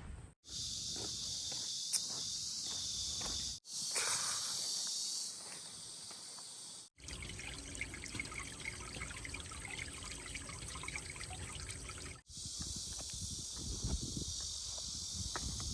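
Outdoor ambience cut together from several short takes, each a steady high hiss with faint scattered ticks and scuffs, the sound changing abruptly at each cut.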